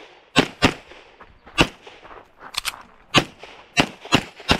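Rapid pistol shots from a red-dot-sighted handgun fired during a practical shooting stage: about eight sharp cracks, some in quick pairs and some single, roughly half a second apart.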